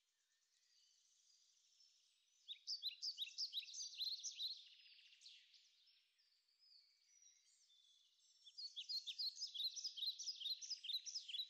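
A songbird singing faintly: two rapid phrases of quick, high chirping notes, one a couple of seconds in and another near the end.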